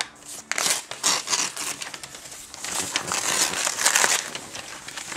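Newspaper gift wrapping crinkling as it is pulled open by hand, in two rough bursts: a short one about a second in and a longer one around three to four seconds in.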